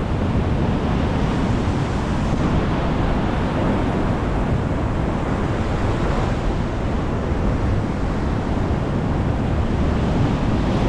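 Steady wind buffeting the microphone over the wash of surf on the shore.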